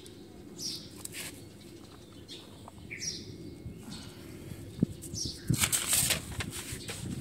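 Rustling and handling noise, with a loud burst of rustling about five and a half seconds in, and a few short high chirps from a bird.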